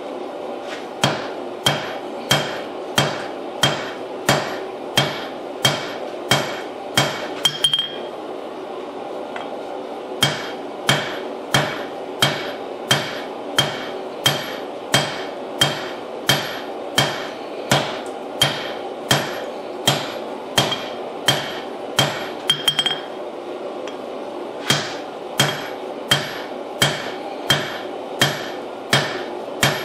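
Hand hammer striking a white-hot damascus billet on a steel anvil, about two blows a second, each with a short ring, with two brief pauses. It is a forge weld at welding heat, an attempt to weld shut a spot where the layers had separated.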